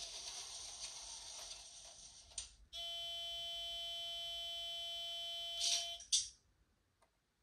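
Sound effects from the LokSound 5 decoder's small speaker in an N-gauge TGV Sud-Est model: a hiss for about two and a half seconds, then a steady single-pitched tone for about three seconds, ending in two short bursts of hiss.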